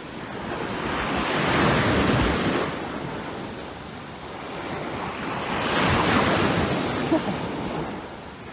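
Surf washing in: a rushing noise that swells and fades twice, the swells about four seconds apart.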